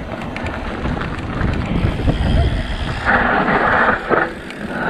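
Yeti SB165 mountain bike rolling fast down a loose dirt trail: tyres crunching over dirt, the bike rattling and wind buffeting the helmet camera's microphone in a steady rumble. About three seconds in there is a short scraping hiss lasting under a second.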